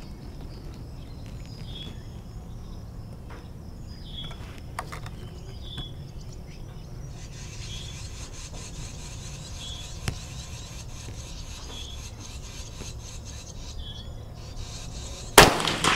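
Outdoor ambience with an insect chirping at regular intervals and a steady high insect buzz joining about halfway. Near the end comes a single sharp shot from a Mossberg 640 .22 Magnum bolt-action rifle.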